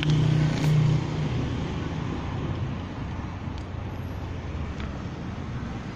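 Low steady hum of a vehicle engine running close by, which fades about a second in and leaves a steady rumble of street traffic.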